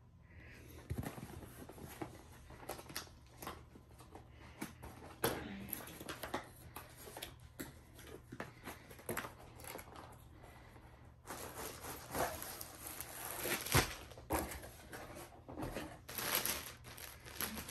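Rustling and crinkling of plastic wrap and cardboard packaging as a diamond painting kit is handled and a plastic-wrapped rolled canvas is set down, with scattered small clicks and knocks. The crinkling grows louder and denser about two-thirds of the way through.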